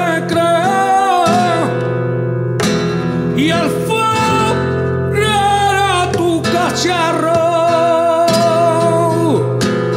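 Flamenco song with acoustic guitar accompaniment. The singer draws out long, wavering lines without clear words, briefly pausing about two and a half seconds in and again near the end.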